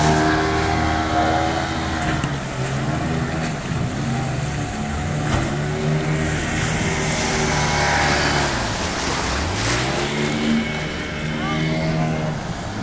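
Speedboat's outboard motor running at speed over the rush of water and spray, its pitch falling and rising again several times, with a deep dip about nine seconds in.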